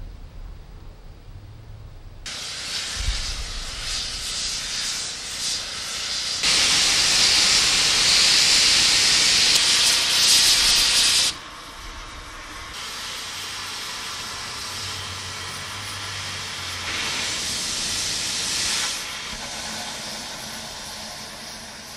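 Steam hissing from a valve on top of a Tangshan-built steam locomotive's boiler. It starts about two seconds in after a low rumble and is loudest from about six to eleven seconds in. Then it drops sharply to a softer hiss that swells again briefly near the end.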